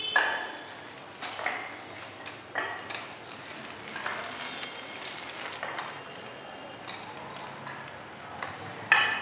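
Irregular sharp clinks and taps, about one a second, several of them ringing briefly.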